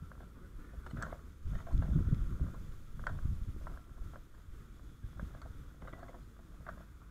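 Uneven low rumbling of wind and movement on a helmet-mounted camera's microphone, with a few light knocks, loudest about two seconds in.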